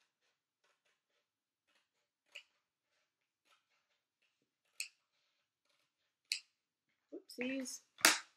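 Kitchen scissors snipping through paper: a run of faint, crisp cuts with a few sharper snips. Near the end the scissors are set down with a sharp clack on a cardboard box.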